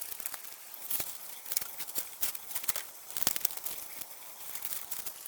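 Scattered light taps, clicks and rustling, a few a second, with faint background hiss.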